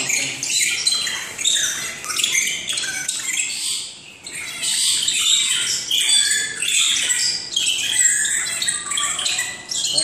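Several birds chirping and calling over one another in an aviary: a busy, high-pitched chorus of short repeated calls, with a brief lull about four seconds in.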